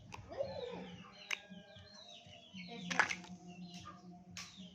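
Birds chirping in many short, falling chirps, over a steady low hum, with a few sharp clicks or taps; the loudest click comes about three seconds in.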